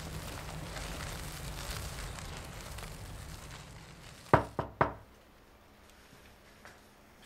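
A steady low rumble that slowly fades, then three quick, sharp knocks about four and a half seconds in, followed by quiet room tone.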